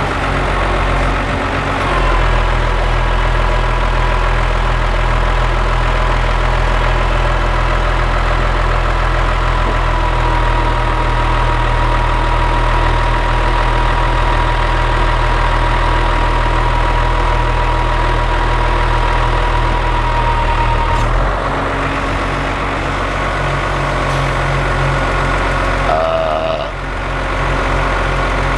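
Engine-driven crane running steadily as it draws the car hoist's ram out. A thin steady whine sounds from about two seconds in until about two-thirds of the way through. The engine's note shifts when the whine stops and dips briefly near the end.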